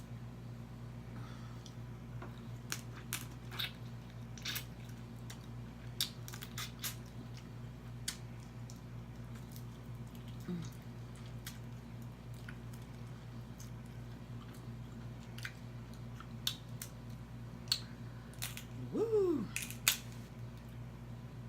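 Crab legs being eaten close to the microphone: scattered sharp clicks and cracks of shell and chewing, over a steady low hum. Near the end, a short hummed sound rises and falls in pitch.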